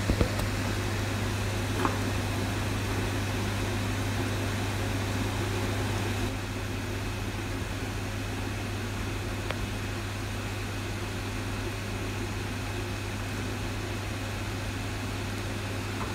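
A steady low mechanical hum with an even hiss, like a fan or air-conditioning unit running, dropping slightly in level about six seconds in; a few faint clicks.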